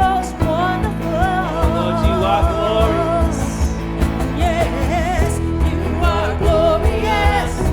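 Live worship band playing a song with a singer's voice, steady drum beat and bass.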